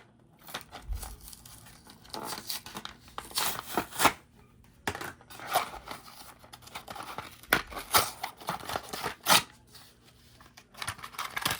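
Packaging of a die-cast toy car being torn and cut open by hand: a series of irregular ripping, scratching and crinkling sounds.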